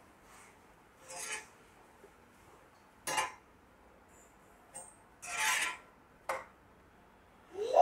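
Metal slotted spatula scraping and knocking against a cast-iron tawa as a flatbread is pushed about and flipped: four short rasping scrapes a second or two apart, two of them sharp. A short rising sound right at the end is the loudest.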